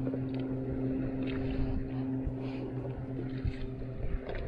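Steady low hum of a boat's motor, which stops about three and a half seconds in. Rumbling noise follows near the end.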